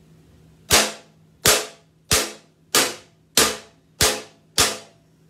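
A wooden spoon striking a metal cookie sheet seven times, about one and a half hits a second, each hit a sharp bang with a short metallic ring.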